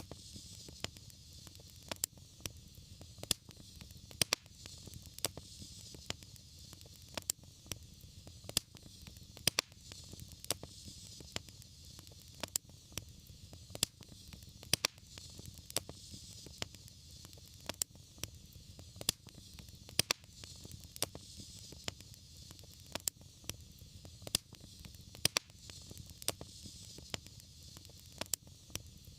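Wood fire crackling, with irregular sharp pops, a few a second, over a steady hiss and a low rumble of the flames.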